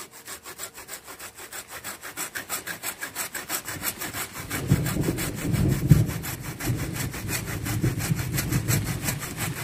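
Hand saw cutting through a storm-broken jackfruit branch in quick, even back-and-forth strokes, angled downward. The strokes grow louder and deeper from about halfway through.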